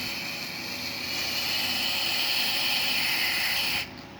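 Aerosol can of electronics contact cleaner spraying steadily through its nozzle onto a circuit board, a steady hiss that grows a little louder after about a second and cuts off suddenly near the end.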